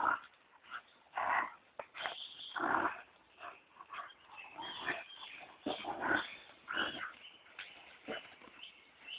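A young Rottweiler worrying and chewing a large stick, making short, irregular bursts of dog noise as it works at the wood.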